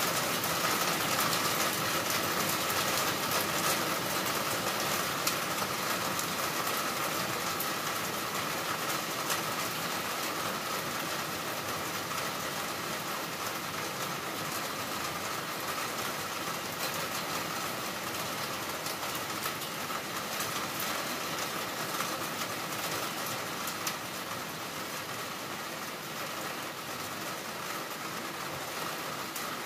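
Heavy rain pouring down in a steady, dense hiss of drops, easing slightly in loudness over the stretch.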